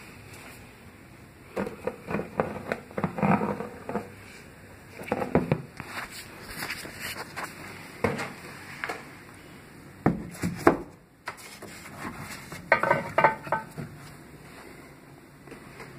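Handling noise: irregular knocks, taps and rustles as the handmade sheet models are picked up and moved and the phone shifts in the hand. The sounds come in several short clusters, with quieter stretches between them.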